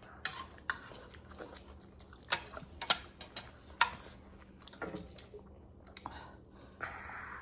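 A person eating: chewing with irregular wet mouth smacks and clicks, and a longer noisy mouth sound near the end.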